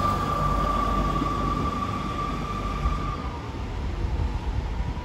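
GWR passenger train running out of the platform, the rumble of its coaches on the track fading as it goes. A steady high-pitched whine rides over it and stops about three seconds in.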